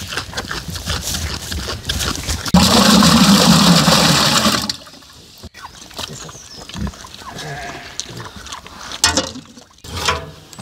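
A pig crunching and munching a cabbage head close up, with a loud noisy stretch of about two seconds partway through. After that comes quieter paper and cardboard rustling and a few knocks as a metal drum stove is loaded with kindling.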